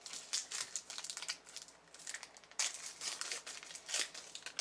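Trading-card pack wrapper crinkling and tearing as it is opened by hand, a run of irregular crackles with sharper rips about two and a half and four seconds in.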